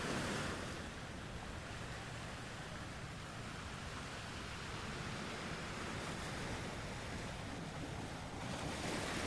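Sea surf washing onto a beach: a steady hiss that swells as a wave comes in at the start and again near the end, over a low rumble.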